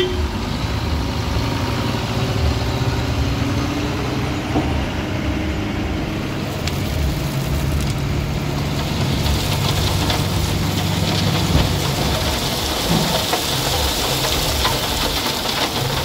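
Dump truck's diesel engine running as the truck creeps forward with its tipper body raised. From about halfway, crushed stone pours out under the tailgate onto the road with a steady rushing hiss.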